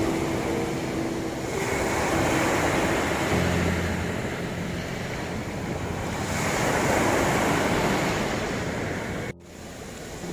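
Sea waves washing onto a shore in slow swells, with a few soft piano notes faint underneath. Near the end the sound cuts out abruptly for about a second.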